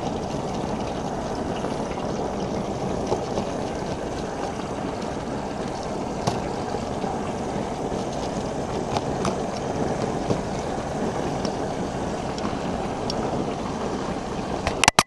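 Sheepshead pieces deep-frying in a wide pan of hot oil: a steady bubbling sizzle with scattered sharp pops.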